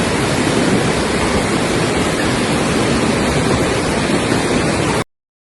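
Torrential rain pouring down in a steady, loud rush of noise that cuts off suddenly about five seconds in.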